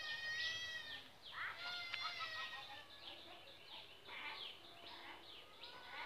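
Birds calling in the trees: a busy run of high, whistled calls and chatter, with many short notes sliding downward in pitch, loudest in the first two seconds.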